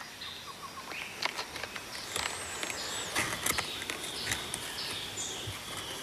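Foil snack packet crinkling and rustling in irregular small clicks as a strip of pandanus leaf is poked inside it. Thin, high, wavering bird calls sound over it, once at about two seconds and again near the end.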